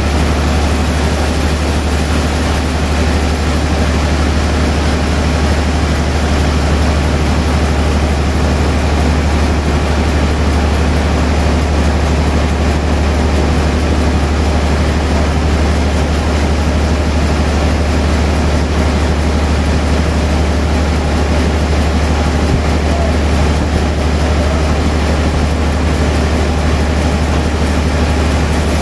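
Large log band saw running steadily while it rips a big log into a wide slab: a continuous loud machine noise with a strong low hum underneath.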